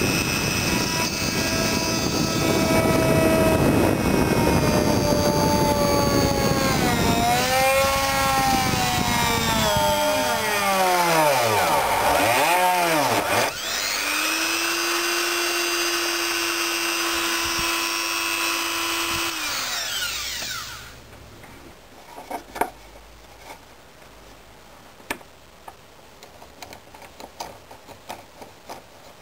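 Jeweller's rotary tool with a small bur, running against a cast silver ring to grind and finish it. Its whine sweeps down and back up in pitch several times, then holds steady and stops about 21 seconds in, leaving light scattered clicks and taps.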